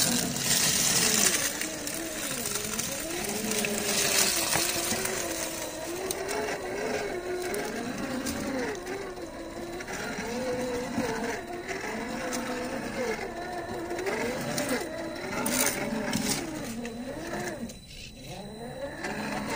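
Brushed 550-size electric motor and geared drivetrain of a 1/10 RC rock crawler whining, its pitch rising and falling as the throttle is worked over rock. A few scrapes of tyres on stone are mixed in.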